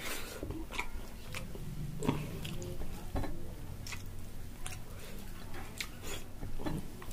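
A person chewing and eating food, with irregular short mouth clicks.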